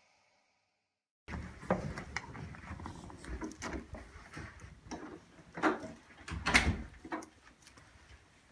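Silence for just over a second, then irregular knocks and clicks of objects being handled in a small room, loudest in a cluster about two-thirds of the way through.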